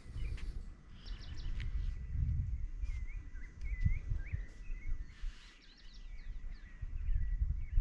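Wind gusting on the microphone, with small birds chirping in many short, quick notes.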